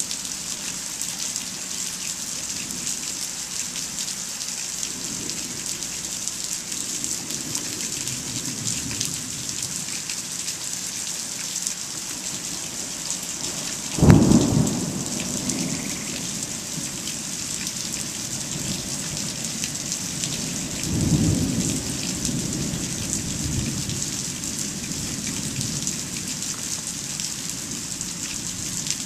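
Steady rain falling, with a sudden sharp thunderclap about halfway through that trails off into rumbling. A second, softer roll of thunder follows about seven seconds later.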